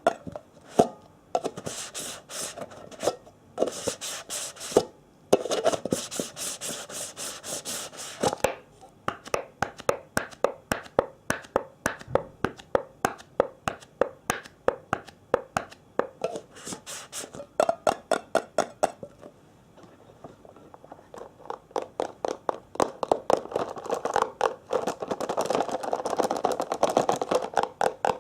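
ASMR triggers: rapid tapping and scratching on hard objects, several sharp taps a second, with a brief pause about two-thirds of the way through.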